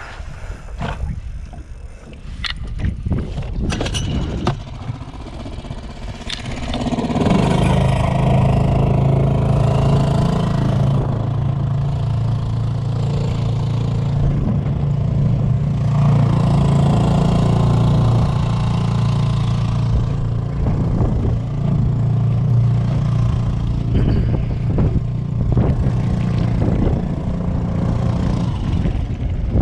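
A small boat's motor comes on about six or seven seconds in and runs at a steady, even pitch. Before it come a few sharp clicks and knocks from handling fishing gear.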